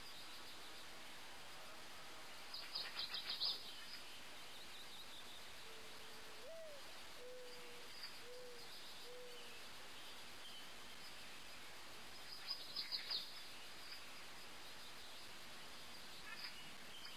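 Outdoor birds chirping: two short bursts of rapid, high-pitched chirps about ten seconds apart over a faint steady hiss, with a fainter, lower call of a few short notes in between.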